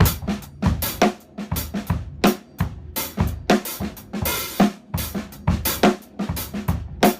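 Drum kit played slowly: a linear groove with the left hand on the hi-hat, interlocking with snare and bass drum strokes, with a brief cymbal wash about four seconds in.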